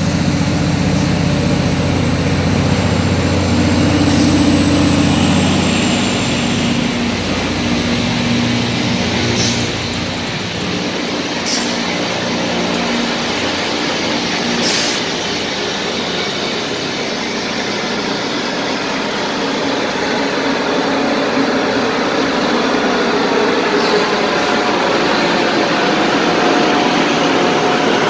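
Rail grinding train passing slowly, its grinding stones on the rails making a steady rushing noise. The low hum of its engines is strong for the first six seconds or so, then fades. A few sharp ticks stand out around the middle.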